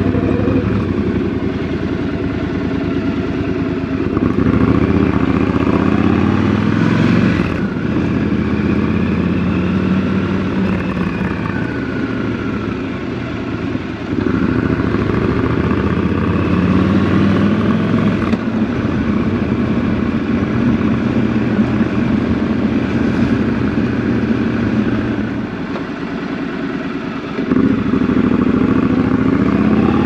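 Triumph Scrambler 1200 XC's parallel-twin engine running on the move, its note rising and falling as the throttle is opened and closed. Louder pulls under acceleration start about four, fourteen and twenty-eight seconds in.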